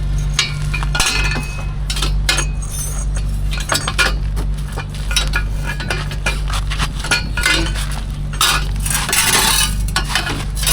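Irregular metallic clinks and clanks of steel exhaust pipe pieces and spanners being handled while a motorcycle exhaust bend is swapped, over a steady low hum.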